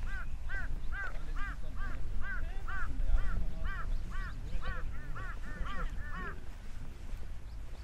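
A crow cawing: a long series of calls, about two a second, that come quicker near the end and stop a little over six seconds in, over a low rumble.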